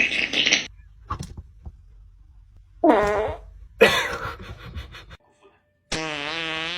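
Fart sound effects: a short buzzing blast about three seconds in, another about a second later, then a long, even one starting near the end.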